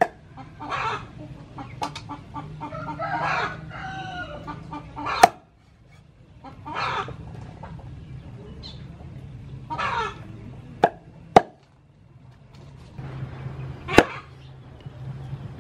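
A cleaver chops raw chicken on a wooden cutting board, about six sharp single strikes spaced irregularly. Live chickens cluck close by between the chops, and a rooster crows about three seconds in.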